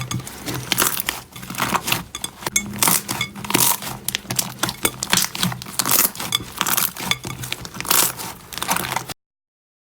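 Hands squeezing and working slime: an irregular run of short squishing, crackling noises, several a second, that cuts off suddenly about nine seconds in.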